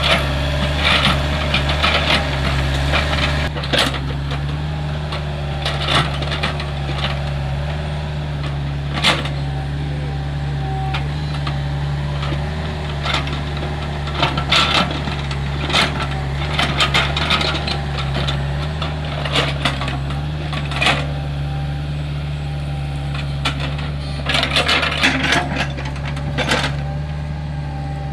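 Hitachi excavator's diesel engine running steadily, with irregular knocks and clanks from the bucket digging and scraping dry, hard soil.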